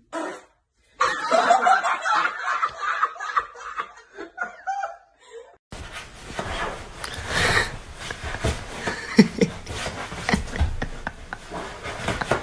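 People laughing in repeated short bursts for several seconds. About six seconds in the sound cuts to a rougher, steady noisy stretch with scattered knocks.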